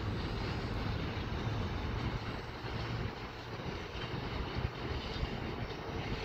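Steady rumble of a freight train of bogie tank wagons rolling over the station pointwork, easing a little about halfway through.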